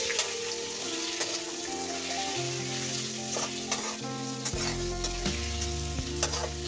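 Duck meat, onions and ground spices sizzling in hot oil in a metal kadai, stirred with a metal spatula that scrapes and clicks against the pan now and then.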